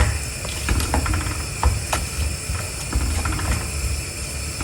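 Tomato and pea masala boiling in a pan, bubbling and spitting with irregular small pops over a steady low rumble.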